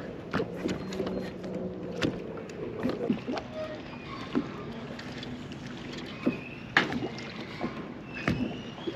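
Small boat on the water: a steady low hum for about the first two seconds, then scattered sharp clicks and knocks over a background of water and wind noise.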